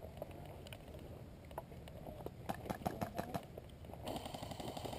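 Footsteps and gear knocking, with a quick cluster of clicks about halfway through. Near the end a continuous burst of full-auto airsoft rifle fire begins: a fast rattle with a whine.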